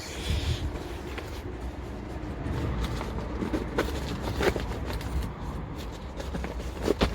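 Car engine idling steadily, with a few light knocks of handling.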